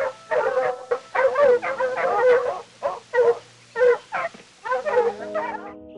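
Red fox kits whining and yipping: a string of short, wavering, high calls with brief gaps between them. Music with held notes comes in near the end.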